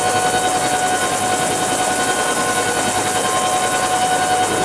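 Helicopter turbine engine and rotor running steadily on the ground, heard from inside the open cabin: a loud, even rush with a steady high whine.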